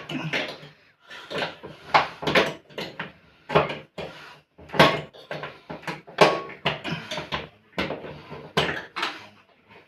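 Irregular knocks and clatters of hard objects being handled and bumped, about a dozen short sharp strikes.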